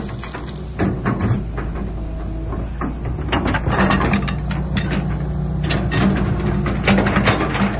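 Excavator at work: its diesel engine runs steadily underneath irregular metallic clanking and rattling.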